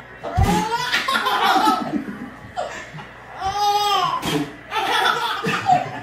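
Babies laughing heartily in three spells: one starting about half a second in, a drawn-out high-pitched note in the middle, and another fit near the end.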